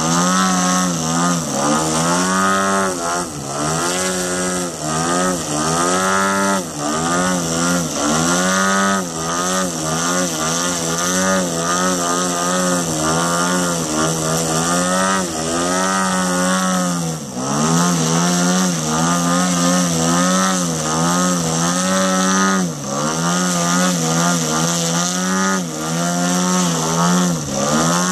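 Engine and propeller of a large radio-controlled aerobatic airplane hovering nose-up, its pitch constantly rising and falling as the throttle is worked to hold the hover, with a few brief sharp drops in throttle.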